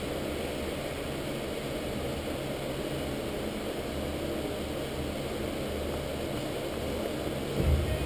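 Steady mechanical hum of ventilation fans. Near the end a louder low rumble comes in.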